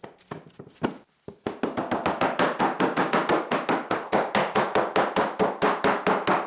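Shop towel rubbed quickly back and forth over a wooden board: a steady rhythm of about five short scrubbing strokes a second that starts about a second in, after a few light handling clicks.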